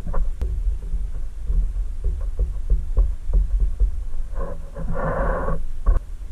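Close-up soldering of wires onto a terminal in a plastic toy body, with a steady low rumble, a run of small clicks, and a short hiss about five seconds in, followed by a sharp click.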